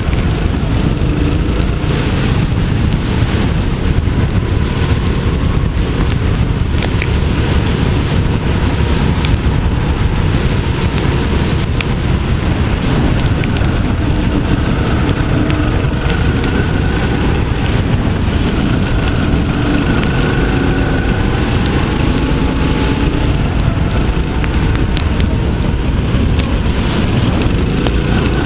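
Rental kart's small engine running at speed, its pitch rising and falling through the corners, under heavy wind and rain noise on the onboard microphone.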